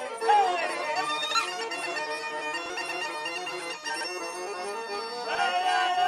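Bulgarian folk dance music led by a bagpipe, a gaida, playing a quick ornamented melody over a steady drone.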